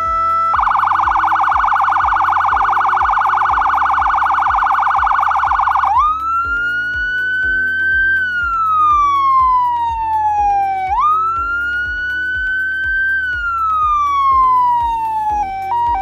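A SpeedTech Lights Mega 100-watt electronic siren running through its tones. First a rapid warble for about five seconds, then the wail, which rises and falls slowly twice. Near the end it switches to a quick alternating two-note pattern.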